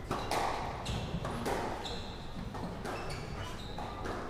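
Squash rally: sharp smacks of the ball off rackets and the court walls, about six over four seconds, with short high-pitched squeaks of shoes on the wooden floor between them.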